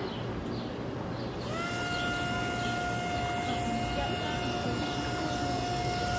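Small electric motor of a toy kit boat starting up about a second and a half in, rising briefly in pitch as it spins up, then whining steadily at one pitch.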